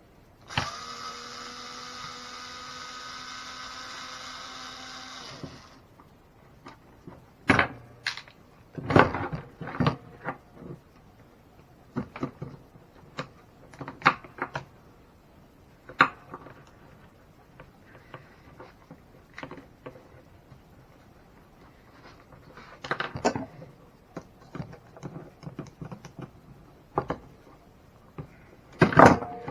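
A small electric motor whirs steadily for about five seconds. Scattered clicks and knocks of small tools and plastic parts being handled follow.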